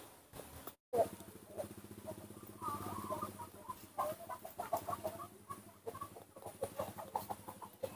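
A quick, irregular run of short clucking calls over a low pulsing murmur, with a sharp click after a momentary dropout about a second in.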